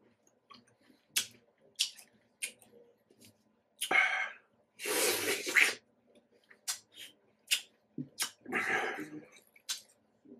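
Close-miked eating noises: a string of sharp, wet mouth clicks and smacks from chewing fruit, with three longer hissing bursts of slurping or breath in the middle and near the end.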